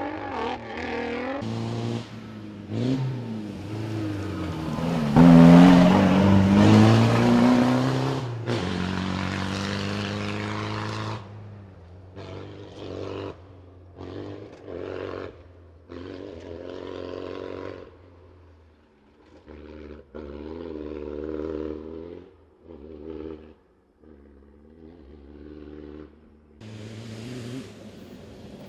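Off-road rally car engines running hard at high revs, the note rising and falling with throttle and gear changes. The loudest, closest pass comes about five to eight seconds in. Later the engine sound breaks off and comes back abruptly several times.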